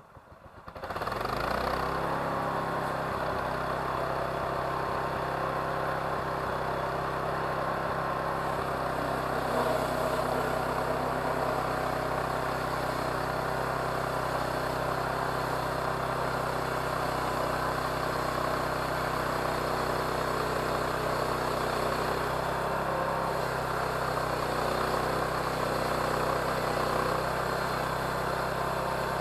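Engine of a homemade sawmill coming up to speed about a second in, then running steadily at a constant pitch.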